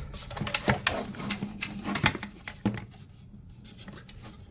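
Plastic clicking and knocking as a cordless leaf blower's plastic housing is handled during a teardown. It is busiest in the first three seconds, with only a few light ticks after that.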